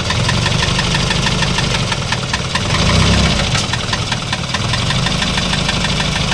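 Isuzu 4HL1 four-cylinder diesel engine idling with a fast, regular metallic knock (lagapak), swelling briefly about halfway. The mechanic rules out a fuel knock, and teardown traces it to a piston with large play.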